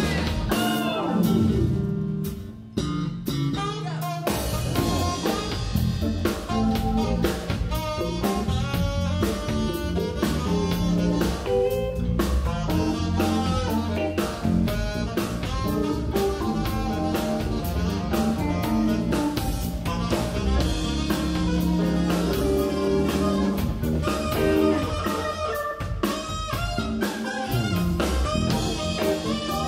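Live soul-jazz band playing an instrumental: electric guitar, keyboard, electric bass and drum kit in a steady groove, with a brief drop-out about two seconds in before the band comes back in.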